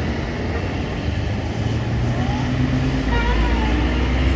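A bus engine running as the bus passes close: a deep rumble that grows louder toward the end.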